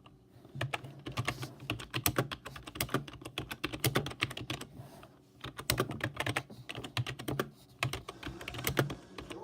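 Computer keyboard being typed on quickly, a dense run of keystroke clicks with two short pauses, about five seconds in and again near eight seconds.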